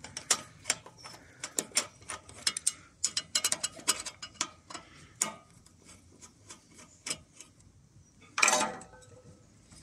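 Screwdriver undoing the screws of a Briggs & Stratton engine's choke assembly: quick runs of sharp ratchet-like clicks through the first half, sparser clicks after, and a short, louder scrape near the end.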